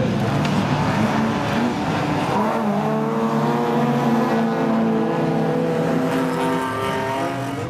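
Rallycross cars of the over-1600 cc class racing past with their engines held at high revs.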